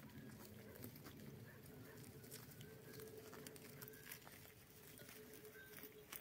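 Near silence with faint, scattered clicks and rustles from goats grazing, cropping dry grass and stepping among stones. A faint steady hum runs underneath.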